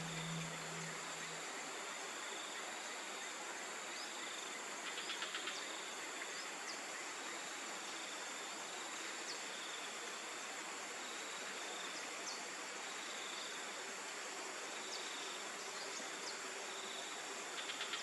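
Tropical rainforest insects calling: a steady high hiss and constant high drone, with a softer chirp pulsing about once a second. A few faint short whistles sound here and there, and brief rattles of rapid ticks come twice, about five seconds in and near the end.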